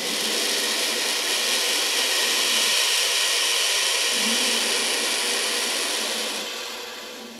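Turkey vulture hissing: a long, steady breathy hiss that fades away near the end.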